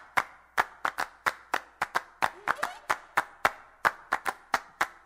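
Rhythmic handclaps, a sharp clap about four to five times a second in a slightly uneven pattern, used as a percussion track.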